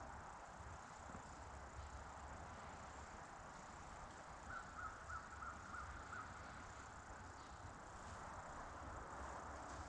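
Quiet woodland ambience with a faint steady hiss. About halfway through, an animal gives a quick series of about six short calls.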